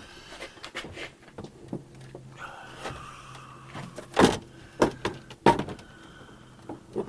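Jaguar Mk2 steel door being worked on its hinge: scattered metal clicks and knocks, with a loud knock about four seconds in and two more over the next second and a half.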